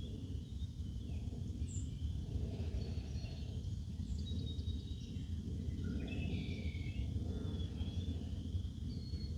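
Wild birds chirping and calling in short, scattered notes, busiest about six to eight seconds in, over a steady low outdoor rumble.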